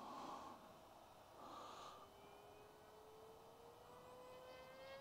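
Faint whine of the flying wing's Sunnysky brushless motor and propeller, rising slowly in pitch through the second half as the wing dives, after two brief rushes of noise in the first two seconds.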